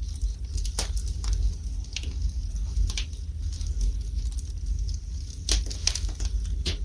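Wood fire burning in a fireplace: irregular sharp crackles and pops, a few bunched together near the end, over a steady low rumble.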